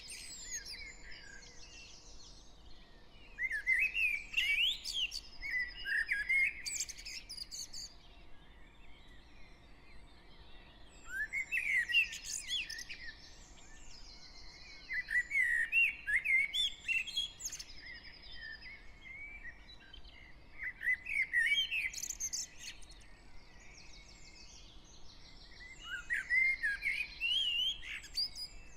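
Garden birds in a dawn chorus. One nearby bird sings short, warbling phrases of two to three seconds, again every four to five seconds, with fainter, higher chirps from other birds in the gaps.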